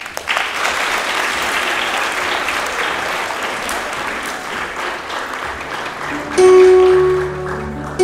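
Audience applauding for about six seconds. Then an electronic keyboard starts playing loud sustained notes over a bass line.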